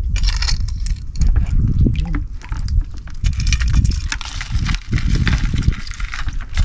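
Shallow seawater splashing and sloshing in quick, irregular bursts, as from wading or working in the water, with a heavy low rumble on the microphone.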